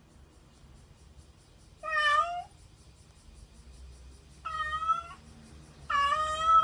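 Domestic cat meowing three times, each call about half a second long, separated by short pauses.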